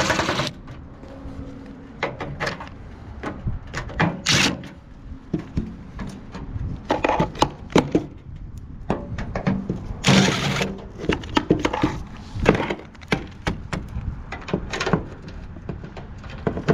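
Irregular knocks, clicks and clatter of a microwave's sheet-metal casing and its screws being handled as it is taken apart, with a few short louder rushing noises.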